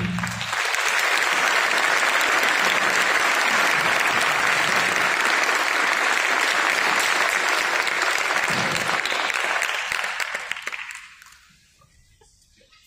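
Auditorium audience applauding, a steady clatter of many hands clapping that dies away about eleven seconds in.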